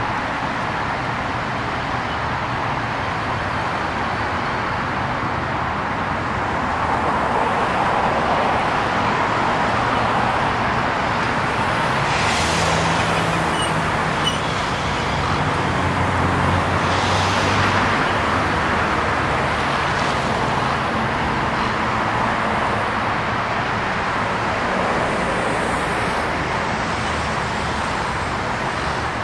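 Road traffic driving past: steady tyre and engine noise from cars, a pickup truck and a school bus, swelling twice as vehicles pass, with a low engine hum through the middle.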